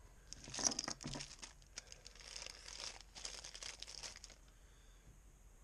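Small clear plastic parts bag crinkling as it is handled and opened in the hands, stopping a little past four seconds in.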